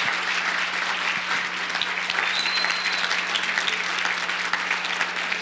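A congregation applauding steadily, many people clapping together.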